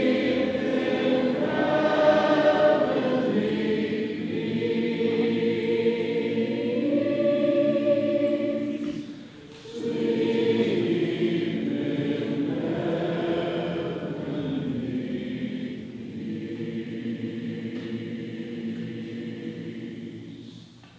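Men's choir singing sustained chords, with a brief break about nine seconds in, then growing softer toward the end.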